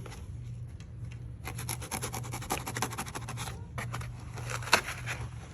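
Kaizen foam being cut with a blade: a rapid, scratchy rubbing that runs for about two seconds, then a shorter bout near the end.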